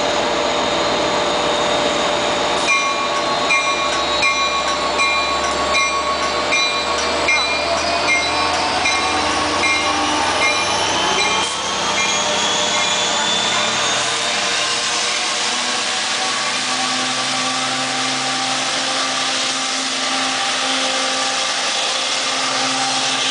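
LIRR DE30AC diesel-electric locomotive pulling a train out of a station, its EMD 710 diesel running under load with a steady drone and a whine that rises in pitch as the train gathers speed. For several seconds early on there is a regular high tick, about one and a half a second.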